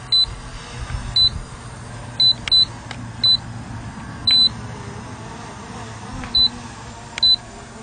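Short, high electronic beeps, about eight at irregular intervals with one slightly longer about four seconds in, over a steady low hum.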